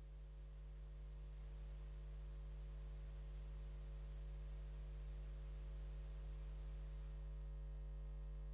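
Faint steady hum made of a few fixed low tones, with a thin high-pitched whine above it; no music or voice.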